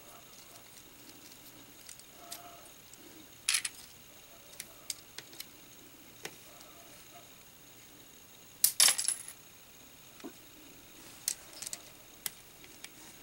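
Small hard LEGO plastic pieces clicking and tapping as they are handled and fitted, with a sharp click a few seconds in and a louder clatter about nine seconds in, as of small round plastic tiles landing on the LEGO baseplate.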